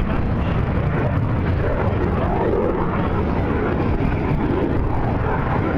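Steady jet engine noise from the Thunderbirds' F-16 fighter jets flying overhead.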